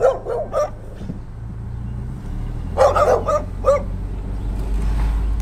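Stray dog barking: a few short barks at the start and a quicker run of barks about three seconds in, over a low steady rumble.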